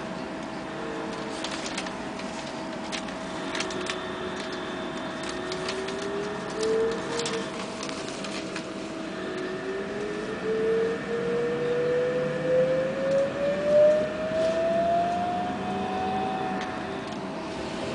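Bogdan trolleybus's electric traction drive whining as it pulls away and gathers speed, heard from inside the cabin: a short rise in pitch about five seconds in, then a longer whine climbing steadily from about nine to sixteen seconds in, over a steady hum. Scattered light clicks and rattles in the first half.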